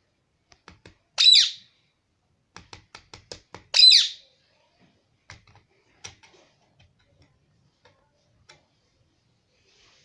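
Indian ringneck parrot giving two loud, shrill squawks about two and a half seconds apart, with runs of quick sharp clicks around and between them.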